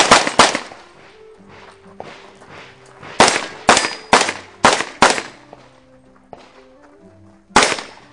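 Gunshots fired in quick strings during a practical shooting stage: two right at the start, a run of five in under two seconds from about three seconds in, and a single shot near the end, each with a short echo. A quiet tune with stepping notes plays underneath.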